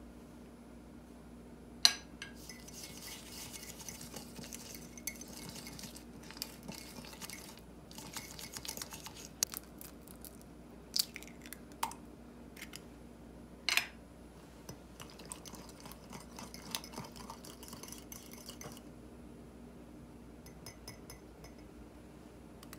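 Metal spoon stirring and scraping through butter, sugar and egg in a ceramic mug, in two long spells of scraping. Sharp clinks of spoon and glass against the mug come through, the loudest about two seconds in and a few more in the middle.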